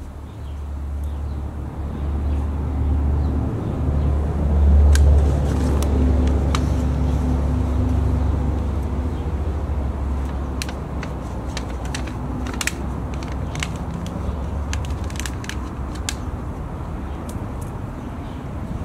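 Hand trowel digging into garden soil, a run of short scrapes and clicks in the second half, over a steady low rumble that swells about four to six seconds in.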